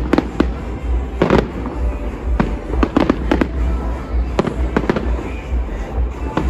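Aerial fireworks going off in a display: many sharp bangs in quick, irregular succession.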